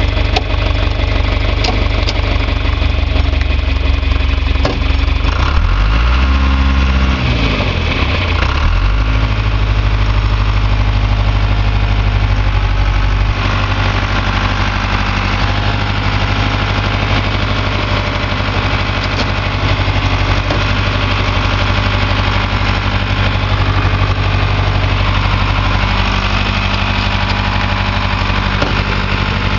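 John Deere 2355 tractor's diesel engine running steadily, heard from inside the cab, its pitch dipping and recovering once about six to nine seconds in. The tractor is in low gear and held against the brakes, and the engine speed barely drops: a sign that the clutch is slipping.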